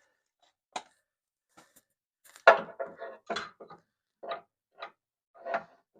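Irregular clicks and knocks of hand tools and hardware being handled during work on a vehicle's fuel tank mounting, about a dozen in all, the sharpest about two and a half seconds in.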